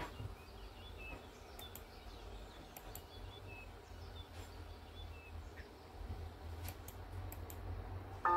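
Faint, scattered clicks of a kitchen knife cutting soft white cheese into small cubes on a cutting board, over a low steady hum.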